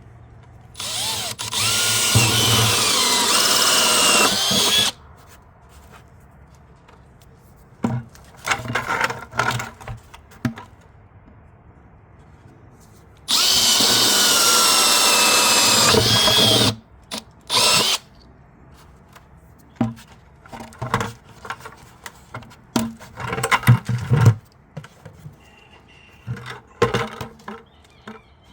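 Power drill running a 1-1/8 inch hole saw through the side of a plastic 5-gallon bucket. There are two long cuts of about four and three seconds, then shorter bursts of drilling, with sharp knocks and clatter near the end.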